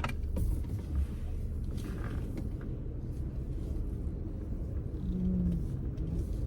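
Steady low rumble of a car heard from inside the cabin, with a few faint clicks near the start.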